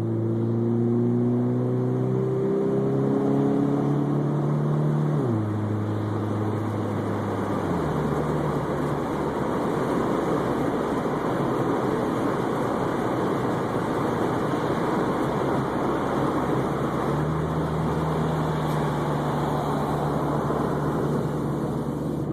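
Chrysler PT Cruiser's four-cylinder engine, fitted with an aftermarket Magnaflow exhaust and Airaid intake, heard from inside the moving car with the windows open. It pulls up through the gears, the pitch stepping down at shifts about five and eight seconds in, then settles into a steady cruise under wind and tyre noise.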